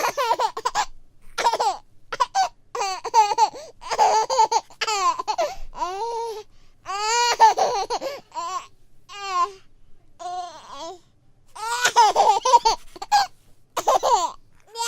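A baby laughing in quick, high-pitched bursts, with a lull of a couple of seconds partway through before the laughter picks up again.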